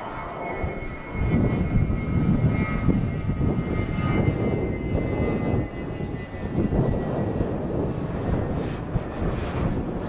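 Airbus A320 twin-engine jet climbing out just after takeoff: a loud, continuous jet engine roar with a faint high whine that slides slightly lower in pitch.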